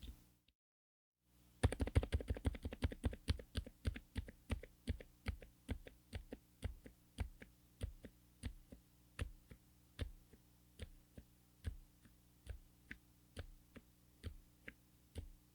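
Mechanical keyboard typing on Kailh Hades silent low-profile switches in a Lofree Flow84: after a moment of silence, a quick burst of fast keystrokes thins into slower, evenly spaced single key presses about two to three a second.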